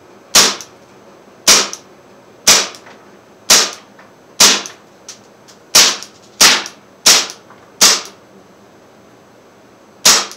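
Umarex Legends M712 CO2 blowback BB pistol firing single shots on semi-auto: ten sharp cracks, about one a second, coming quicker after the halfway point, with a two-second pause before the last.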